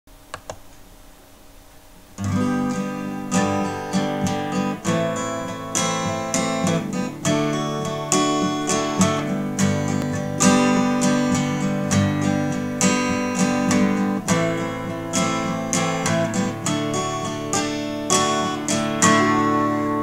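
Taylor acoustic guitar strummed in a steady rhythm as the instrumental intro to a folk song, starting about two seconds in after a couple of faint clicks.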